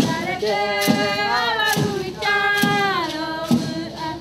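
A group of Tupi-Guarani women and children singing a chant together, with long held notes that glide between pitches. Under it runs a regular beat of sharp strikes, about one a second.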